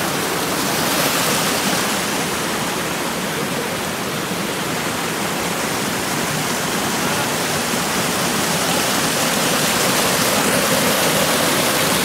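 Water cascading over rocks in a rocky creek, a steady rush of white water.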